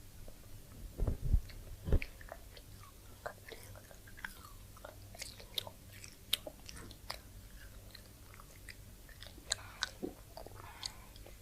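Close-miked chewing and biting of food: scattered wet mouth clicks and small crunches, with a few louder low bumps in the first two seconds.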